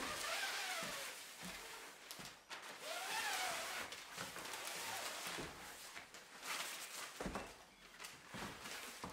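Rustling and scraping as long white insulation strips are pulled from a roll and laid over a paper roofing membrane, with two short squeaks that rise and then fall, and a few light knocks.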